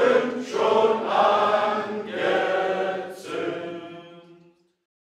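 Choir singing in held notes, with short breaks between phrases, fading out about four and a half seconds in.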